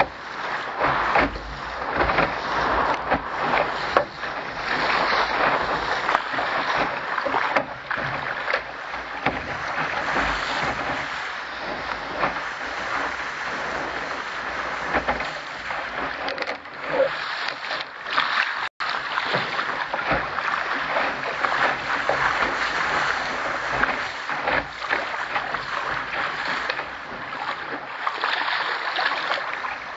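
Water rushing and splashing along the hull of a Contender sailing dinghy moving under sail, with frequent irregular slaps of small waves. The sound cuts out for an instant a little past the middle.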